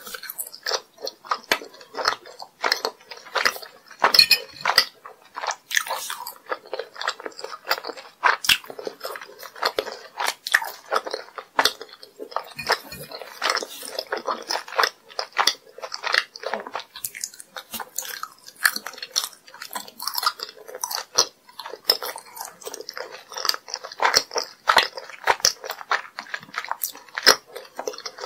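Close-miked chewing and biting of sugar-coated jelly candies: a dense, irregular run of crunches and sticky mouth clicks.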